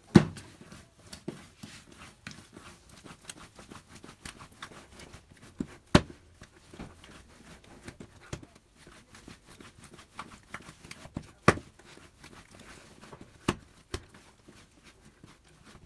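Soft semolina yeast dough kneaded by hand on a granite countertop: faint irregular squishing and pressing, with a few sharper slaps as the dough is pushed down and turned, the loudest about six and eleven and a half seconds in.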